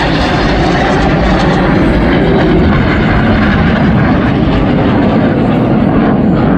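Loud, steady jet noise of Red Arrows BAE Hawk T1 jets flying past, their Adour turbofans heard as a continuous rushing sound.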